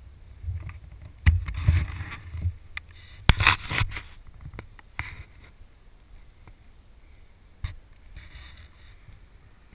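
Wind buffeting on the microphone with a few sharp knocks and scuffs from the camera being handled and turned.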